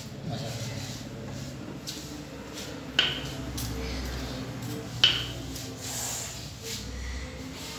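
Two sharp metallic clinks about two seconds apart, from a small metal tin being set down on a tile floor, over a low steady hum.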